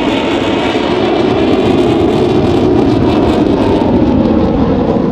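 F-16 Fighting Falcon's single jet engine heard in flight: a loud, steady rushing roar that swells slightly and starts to fade near the end as the fighter climbs away.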